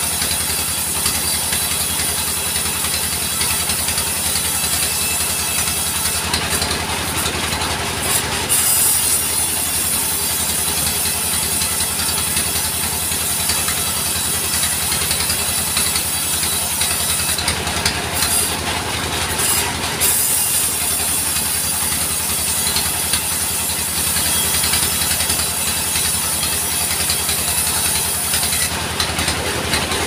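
Mobile sawmill running steadily: a fast-pulsing engine under a high whine from the saw, which dips briefly three times as logs are pushed through.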